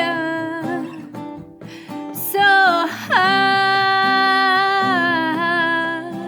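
Song with acoustic guitar and a voice holding long sung notes. A longer held note starts about two and a half seconds in and bends in pitch shortly after it begins.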